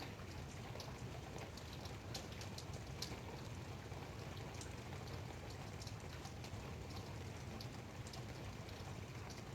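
Light rain falling, a steady soft patter with scattered individual drops ticking irregularly.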